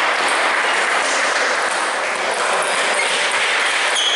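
Steady, even hiss of background noise in a large sports hall, with a faint click or two of a table tennis ball near the end as the rally starts.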